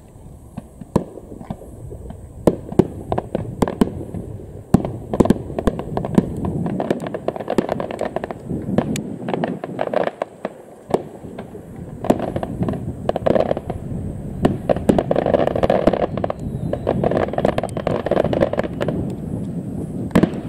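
Aerial fireworks shells going off: repeated sharp bangs of bursting shells. From about halfway through they give way to a denser, louder stretch of rapid popping.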